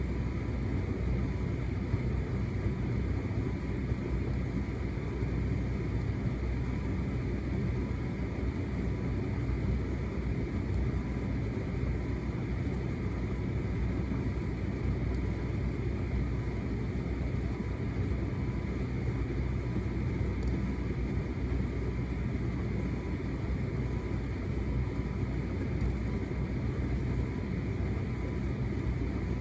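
Hotpoint SUTCD97B6PM condenser tumble dryer running a shirts cycle: the drum turning with the laundry tumbling, over a steady, even rumble of motor and fan.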